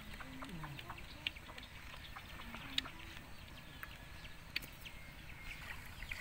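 Quiet background: a low steady hiss with a few faint short calls, one falling in pitch, and a few soft clicks.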